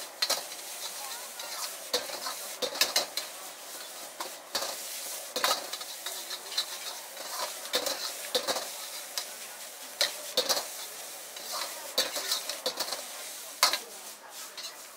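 Metal ladle scraping and clanking against a wok as egg fried rice is stir-fried and tossed, in irregular strikes about one or two a second, over a steady sizzle from the hot wok.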